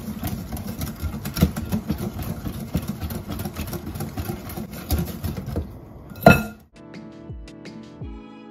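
Wire whisk beating a thin icing-sugar glaze in a glass bowl: rapid, irregular clinking of the wires against the glass. About six seconds in there is one sharp knock, then the whisking stops and soft string music takes over.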